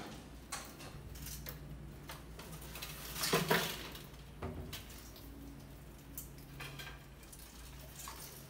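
Light knocks and claw scratches of rats moving on a plywood trap platform, then about three seconds in a loud clatter as the hinged platform carrying a toy truck tips down against a glass tank and the rats drop inside. A few more scattered knocks and scrabbles follow.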